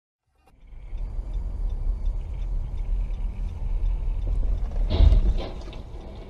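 Road noise heard from inside a moving car: a steady low rumble with a faint regular ticking. About five seconds in comes a louder, short crash of cars colliding.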